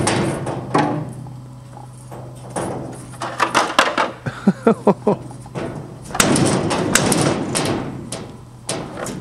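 Old riveted steel body skin on a railbus being wrenched and pried by hand, clanking, scraping and rattling in a run of knocks. There are a few short squeals of flexing metal about halfway through, and a louder, rougher rattle of the sheet about six seconds in.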